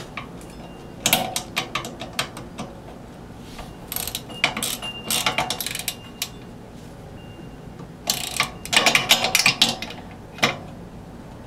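Ratchet wrench clicking in quick bursts, three main runs of rapid clicks, while tightening 12 mm bolts on a generator's steel frame.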